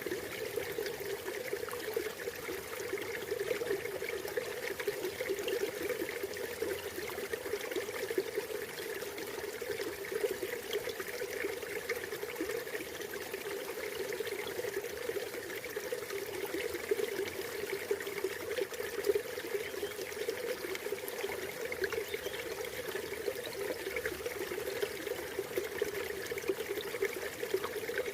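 River water flowing and splashing steadily over rocks, a continuous babbling rush.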